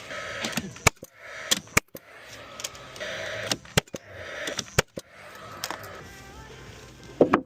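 Irregular sharp clicks and knocks, about a dozen, spaced unevenly, from hand work on timber and tools at a carpentry job.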